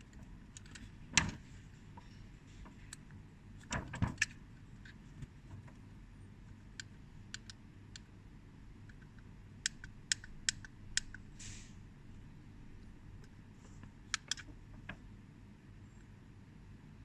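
Buttons on a digital kitchen timer being pressed: scattered sharp clicks, single and in quick runs of two to four, the loudest about a second in.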